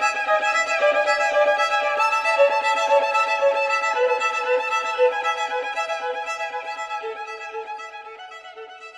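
Instrumental background music with a quick run of repeated notes, fading out over the last few seconds.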